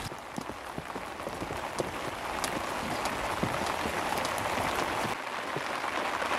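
Steady rain falling: many small drop taps over an even hiss, growing slightly louder.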